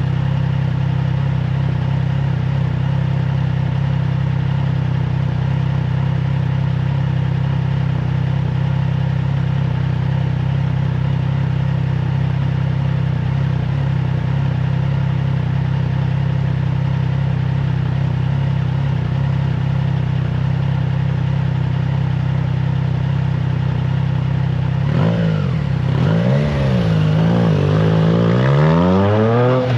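Triumph Trident 660's inline three-cylinder engine through an aftermarket FireTong exhaust, running at steady revs. About 25 seconds in, the revs rise and fall a few times, then climb steadily near the end.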